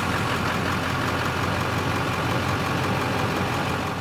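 Vehicle engine idling steadily, starting to fade out near the end.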